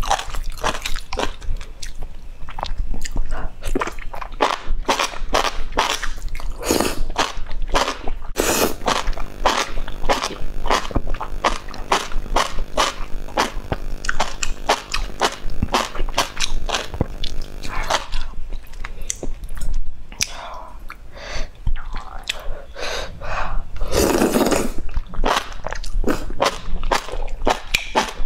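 Close-up mouth sounds of eating enoki mushrooms in broth: wet chewing and lip smacks in quick irregular clicks, with a loud slurp of about a second near the end.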